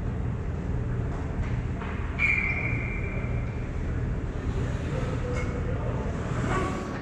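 Ice rink ambience: a steady low rumble, with a sharp sound about two seconds in followed by a high steady tone for about a second. Near the end, skates scrape on the ice as the goalie glides into the crease.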